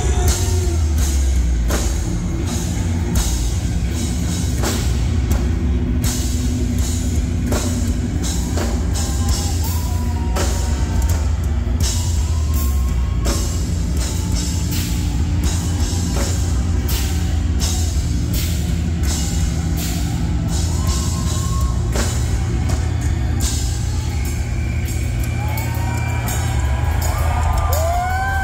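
Heavy metal band playing live through a festival PA: loud, distorted low guitar and bass under frequent drum kit hits.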